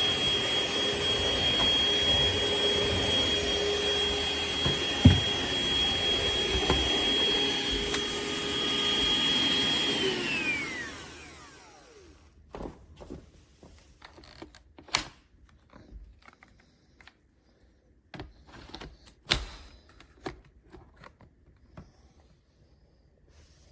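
Hoover ONEPWR Evolve Pet Elite cordless stick vacuum running with a steady high whine. About ten seconds in it is switched off, and the motor winds down in falling pitch. Scattered clicks and knocks of the vacuum being handled follow.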